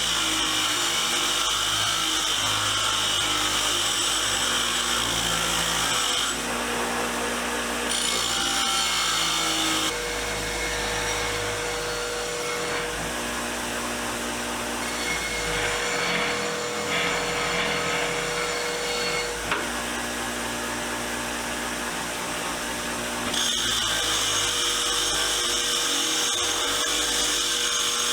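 Powered wire wheel running, its wire bristles scrubbing rust and old paint off the steel parts of pipe wrenches. The harsh scrubbing is strong at first, drops away through much of the middle leaving mostly the motor's steady hum, and comes back near the end.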